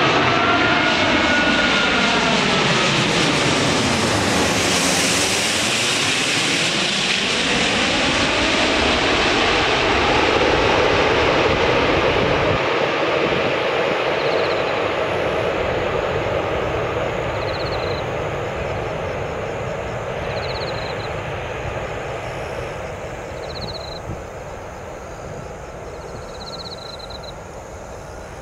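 Airbus A380 jet airliner passing low overhead on final approach, its engines' noise sweeping down in a swirling whoosh as it goes directly above about five seconds in. The sound then fades steadily as the aircraft flies away toward the runway.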